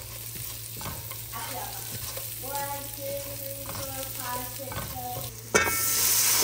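Kitchen work noise with a few light knocks, then a tap is turned on about five and a half seconds in and water runs steadily into the sink, much louder than what came before.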